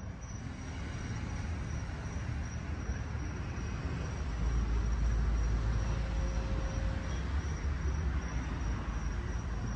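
Crickets chirping in a steady pulsing trill over an even outdoor hiss. A low rumble builds and is loudest from about halfway in.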